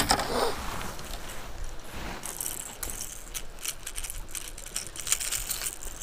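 Irregular small clicks and light rattling from a baitcasting rod, reel and hard plastic lure being handled, with a louder knock at the start and a few short hissing scrapes.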